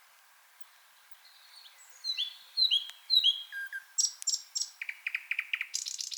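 A songbird singing a varied, loud phrase that starts about two seconds in: slurred whistled notes, then very high notes, then a fast run of repeated notes near the end, over a faint steady hiss of ambient noise.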